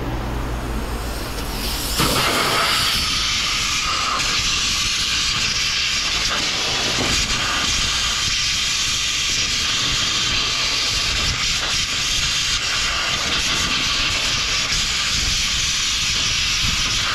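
Compressed-air blow gun blasting a steady, loud hiss into the hood latch switch, starting about two seconds in, to blow electrical parts cleaner out of the switch.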